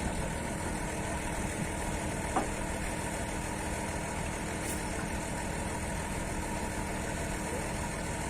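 An engine idling steadily, a continuous low rumble with a faint steady hum. A faint click comes a little over two seconds in.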